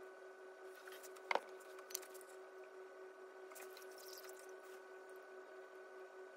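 Wet glaze dripping off a freshly dipped tumbler held upside down in dipping tongs over the glaze bucket: faint soft drips and handling noises, with one sharper tap about a second in and a smaller one just after, over a steady faint hum.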